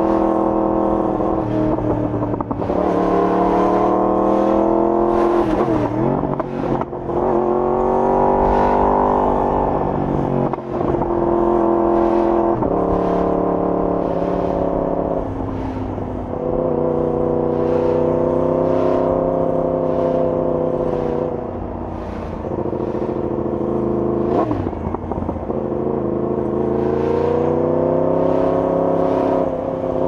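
Yamaha YZF-R1 inline-four sportbike engine through an Akrapovic full exhaust system, revving up and falling back again and again as the bike accelerates and slows. The pitch rises under throttle and drops several times, with a steadier cruising stretch about halfway through.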